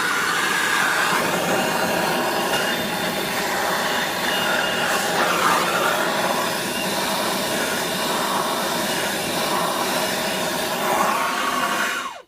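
Steady rushing blast of a heating tool played on a rust-seized pulley on a Briggs & Stratton engine shaft, heating it until the penetrating oil bubbles out of the set screw. It cuts off suddenly near the end.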